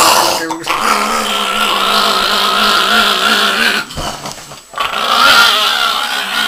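Chihuahua growling and snarling with bared teeth while being rubbed dry with a towel after a bath: two long, unbroken growls with a short break about four seconds in.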